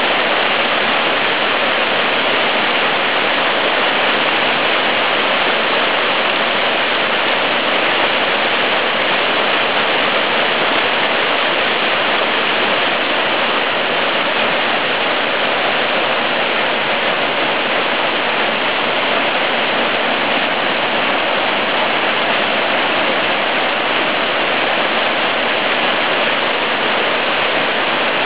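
Small waterfall on a little stream, the water rushing in a loud, steady, unbroken wash.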